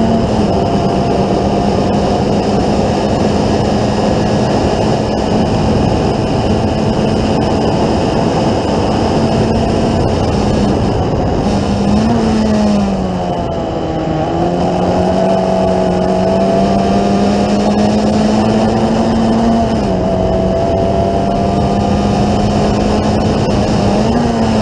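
Formula Ford 1600 race car's four-cylinder engine heard from the cockpit, running hard at high revs with a mostly steady pitch. About halfway the pitch wavers and dips for a moment, then climbs steadily again and drops once more about twenty seconds in.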